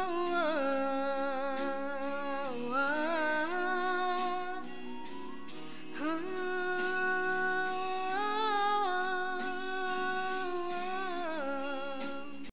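A young woman singing long wordless held notes with vibrato, soft instrumental accompaniment beneath, in two phrases with a short break about five to six seconds in; the voice tails off near the end as the song closes.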